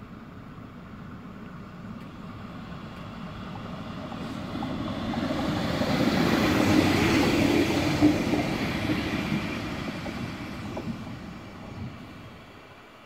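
A ČD class 814 RegioNova diesel railcar passing close by: engine and wheels on the rails growing louder to a peak about halfway, then fading as it draws away, with a couple of sharp clicks near the loudest point and later.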